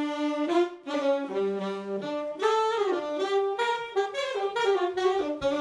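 Jazz big band wind section, led by saxophones, playing an unaccompanied phrase of held and short notes, with no drums or bass under it.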